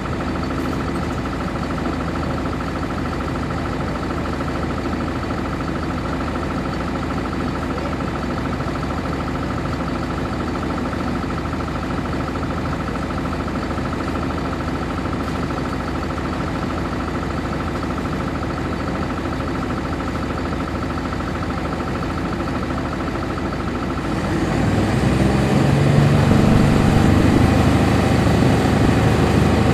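A 1999 NovaBus RTS transit bus's Cummins ISC diesel engine, heard from inside the bus, running at a steady idle. About 24 seconds in it revs up and gets louder as the bus accelerates, its note rising.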